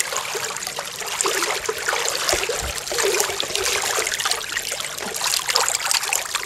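Pool water splashing and trickling around a corgi in a life jacket as it moves in the water: a steady run of small splashes with no pause.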